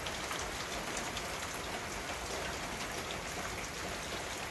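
Steady rain, with many small drops pattering and ticking on surfaces close by.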